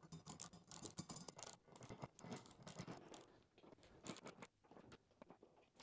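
Faint scratching and clicking of a hand screwdriver turning screws during the final hand-tightening of a ceiling-fan mounting bracket into an electrical box. The clicks come thick and fast at first and thin out near the end.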